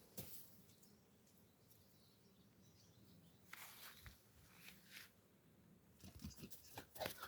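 Near silence: room tone with a few faint, short taps and rustles scattered through it.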